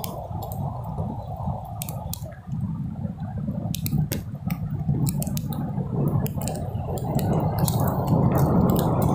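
Footsteps squelching on wet, muddy beach sand, over a steady low rumble of surf and wind, with scattered sharp clicks throughout.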